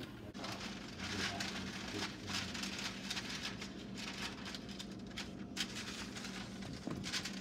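Parchment paper crinkling and rustling as it is unrolled and smoothed onto metal baking sheets, easing off about two thirds of the way through and starting again near the end. A low steady hum runs underneath.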